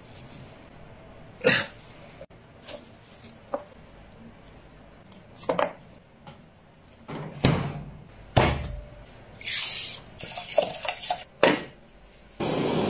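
Kitchen handling sounds: separate knocks and clatters of food and cookware being set down on a metal oven rack and a pot stand, with a hiss of about a second near the end.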